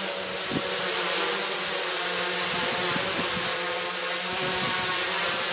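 Quadcopter's electric motors and propellers whirring as it lifts off and hovers, with a steady high whine over a hum of several tones.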